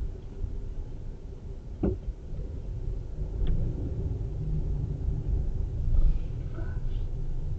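Car driving along a city street: a steady low rumble of engine and road noise, with a short sharp knock about two seconds in.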